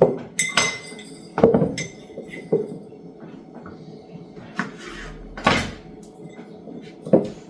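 Kitchen handling sounds: a series of separate knocks and clunks from jars, dishes or cupboards being handled, the loudest about five and a half seconds in.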